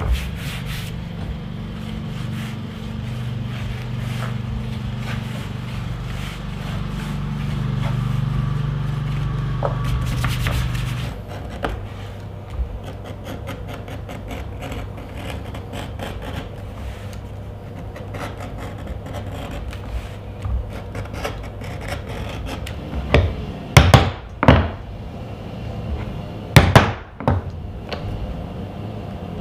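Leather being punched for stitching: light ticks and scrapes of tools on the leather ring against a wooden bench, then, from about three-quarters of the way through, several loud sharp mallet strikes driving a pricking iron through the thick leather to make the stitch holes.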